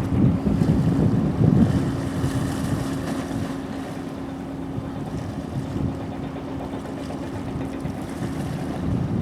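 Wind buffeting the microphone, gusting hardest in the first two seconds and easing after, over a steady low hum.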